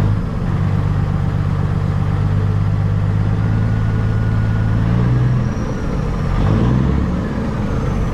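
Caterpillar diesel engine in a Peterbilt 379 running at low speed with a weak sound. Its note is steady at first, then shifts and turns uneven from about five seconds in. The mechanic hears it as misfiring, with the injectors not firing well, and says it could also be a cam.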